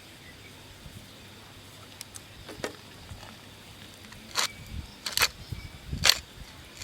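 Four sharp clacks over a faint steady hiss: one about two and a half seconds in, then three louder ones close together in the second half.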